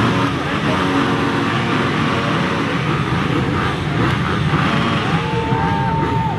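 A field of motocross bikes held on the start line, their engines revving together in a dense, steady din, with single engines blipping up and down above it.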